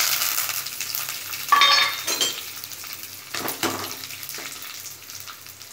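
Dried red chillies and curry leaves sizzling in hot oil in a small steel kadai, the tempering (thalippu) for a greens curry. The sizzle is loudest as they hit the oil and slowly dies down. A spatula stirs them, scraping and clinking against the steel pan, loudest about a second and a half in.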